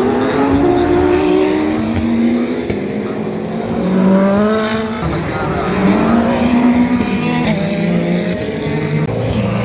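Several endurance race car engines at speed, overlapping one another, each climbing in pitch and dropping back at gear changes as the cars accelerate past.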